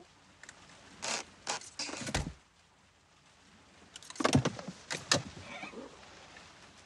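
Plastic clicks and knocks of a dashboard phone cradle being fitted to a car's air vent and a phone pushed into its clamp, in two groups of sharp taps, one with a dull thud.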